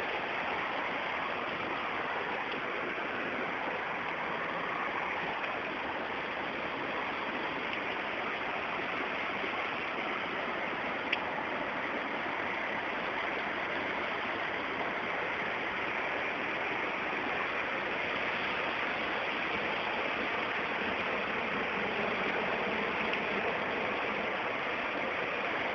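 Steady rush of water from heavy rain and flooding, even and unbroken, with one short click about eleven seconds in.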